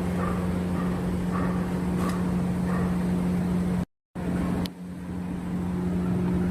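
Steady machine hum with a faint blip repeating about every 0.7 seconds, broken by a sudden short silence about four seconds in, after which the hum returns quieter.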